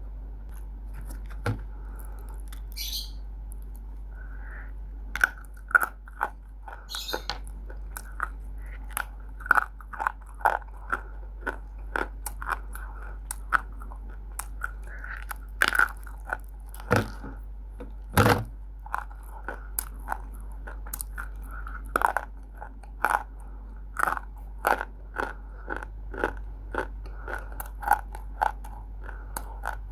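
Roasted multani mitti (fuller's earth clay) being bitten and chewed: a run of sharp, irregular crunches that starts about five seconds in.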